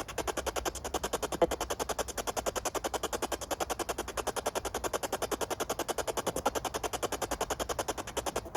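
Spirit box sweeping through radio stations, giving an even, rapid chopping of static and fragments of broadcast sound, several pulses a second.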